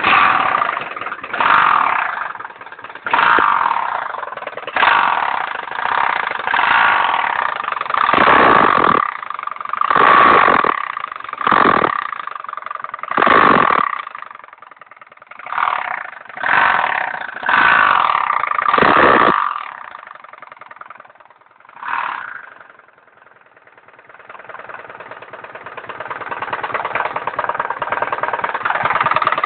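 Irbis Virago 110cc moped engine revved in a series of short throttle blips, then dropping back and settling into a steady idle near the end. It has a knock that appeared after new piston rings and valve stem seals were fitted, though valve clearance and timing are set correctly.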